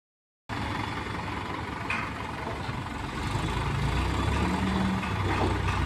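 Diesel engine of a Hydra pick-and-carry crane running steadily, growing a little louder about three seconds in.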